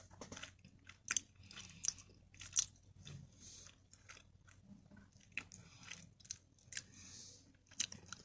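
A person chewing food with the mouth close to the microphone: irregular wet smacks and clicks, several a second at times.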